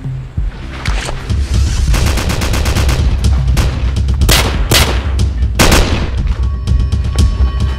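Pistol gunfire sound effects: a fast run of shots from about two seconds in, then four louder single shots in the middle, over a heavy action-film music score.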